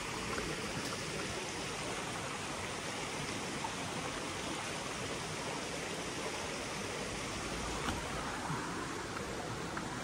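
Shallow creek water running over and around sandstone rocks: a steady babble of flowing water.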